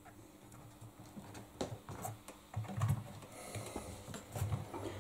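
Scattered light clicks and taps of hands working at the rubber door seal on a washing machine's tub front, with a few soft knocks around the middle and near the end.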